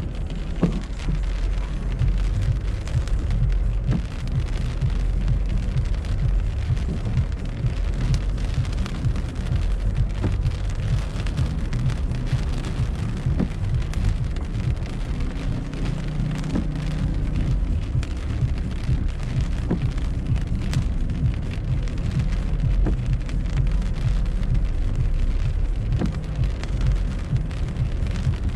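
Typhoon rain pattering on a moving car's windshield and body, heard from inside the cabin as many small drop hits over a steady low rumble.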